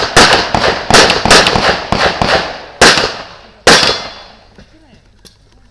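Pistol fired in a rapid string during a practical shooting stage, shots about every third of a second, then two more spaced shots, the last about four seconds in, each with a short echoing tail.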